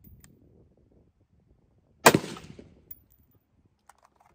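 A single shot from an AR-15 with a 13.9-inch Ballistic Advantage barrel firing 62-grain M855 green-tip rounds, about two seconds in: a sharp crack with a short echo trailing off. A few faint clicks of the rifle being handled follow near the end.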